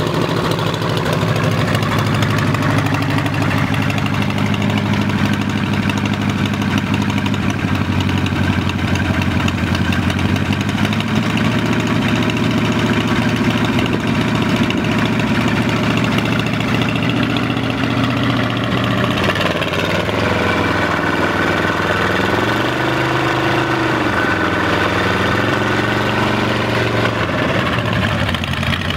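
Engine of a 1947 Sudlow 14-foot hydroplane running on its trailer at a steady idle, then revved a little up and down near the end, the pitch rising and falling a few times.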